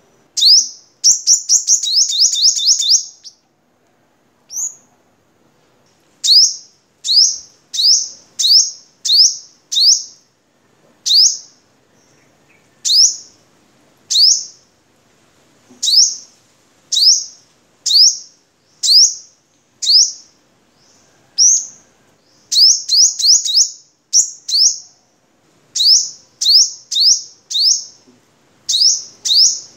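Male sunbird (sogok ontong) singing in a cage: a fast, high-pitched trill of rapid repeated notes in the first few seconds, then sharp, high chips repeated about once or twice a second, sometimes run together in quick groups of three to five.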